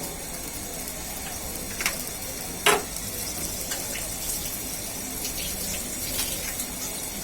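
Korma base of spice paste, yogurt and a little added water sizzling steadily in the cooking pan, with a few sharp clicks, the loudest a little under three seconds in.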